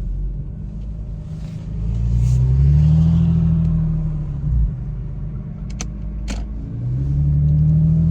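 Infiniti VQ35HR V6 through a freshly fitted Manzo stainless catback exhaust (stock Y-pipe), revving up and back down twice, the pitch rising and falling with each swell. A couple of short sharp clicks come between the two revs.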